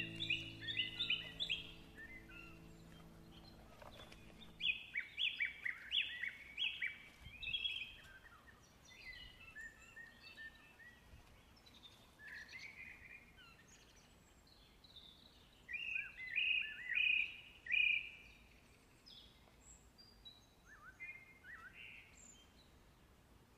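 Songbirds singing: short phrases of quick, high, repeated notes, each phrase a second or two long, coming every few seconds.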